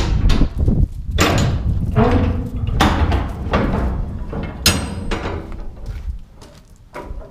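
Steel storage container doors being unlatched and swung open: a series of sharp metal clanks and scrapes with a brief creak, over a low rumble that fades about six seconds in.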